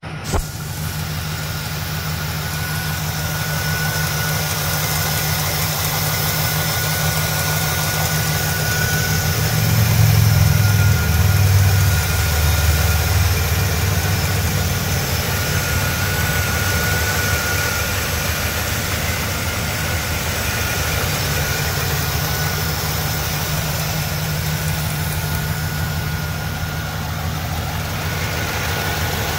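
1996 Chevrolet Caprice's V8 engine idling steadily, heard close up with the hood open, a faint steady high tone over the low running. It grows louder for a few seconds about ten seconds in, then settles back.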